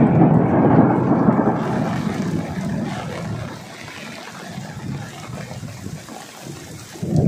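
Heavy rainstorm: steady downpour with a loud low rumble that surges at the start and fades over the next few seconds, building again near the end.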